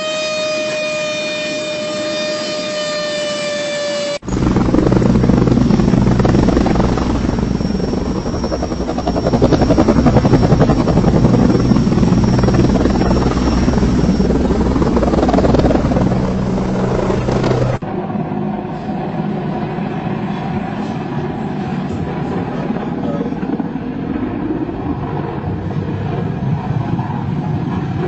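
A steady, alarm-like pitched tone for about four seconds, then an abrupt switch to loud helicopter rotor and engine noise with a steady low hum and a thin high whine. About 18 seconds in it cuts to a different, quieter helicopter recording.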